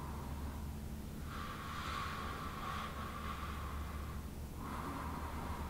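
A person taking a slow, deep breath, drawn out as a soft hiss for about three seconds from just over a second in, as a deliberate breath into the ribs.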